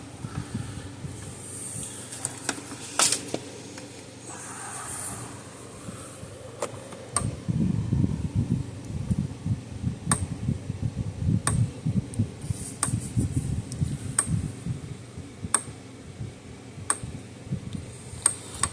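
Repaired Herdsman 50 electric fence charger pulsing: sharp clicks about every second and a half from about ten seconds in, with irregular knocks and handling noise of the unit's case.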